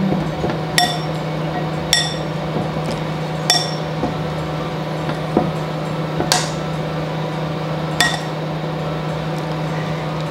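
Metal utensil clinking against a glass mixing bowl, five sharp ringing clinks spaced a second or two apart, as microwaved kabocha pieces are prodded to test whether they are tender. A steady low hum runs underneath.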